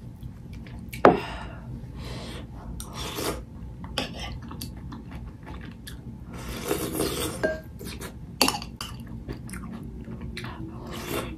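Close-up eating sounds: a metal spoon clinking and scraping against a glass food container, with chewing in between. A couple of sharper clinks stand out, about a second in and again near the end.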